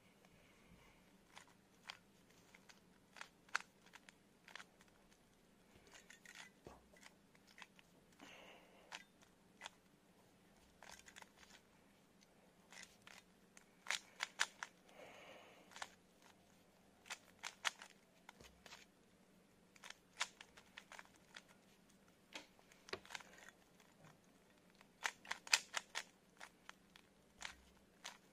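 Rubik's cube being solved by hand: faint runs of quick plastic clicks and rasping layer turns, with short pauses between runs.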